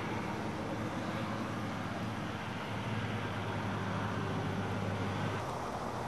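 Farm machinery engine running steadily during the grain harvest, a low hum over a constant noisy drone. The hum cuts off shortly before the end.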